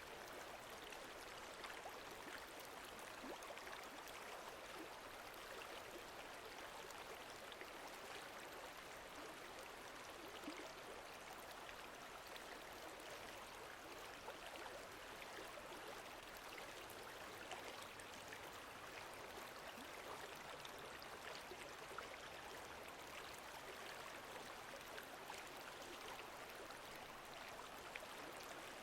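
Faint, steady wash of lake water lapping and trickling, with scattered small drip-like splashes.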